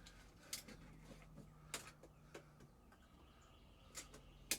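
Faint, scattered clicks and taps from hand tools being handled, about half a dozen, the sharpest near the end, over a low steady hum.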